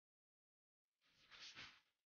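Near silence, broken about a second in by one faint, short rush of noise lasting just under a second.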